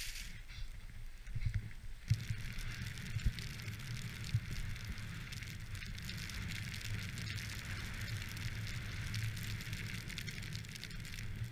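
Snowboard sliding through deep fresh powder: a steady hiss of snow under the board over a low rumble, with a few soft thumps in the first few seconds.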